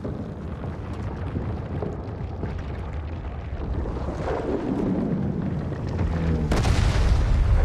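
Film sound design of massive stone crumbling: a continuous deep rumble, with a falling sweep about four seconds in and a sudden heavy crash about six and a half seconds in, after which the rumble is louder.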